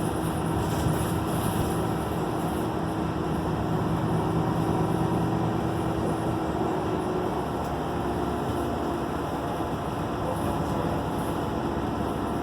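Steady running noise of a bus, engine drone and road noise, heard from inside the passenger cabin.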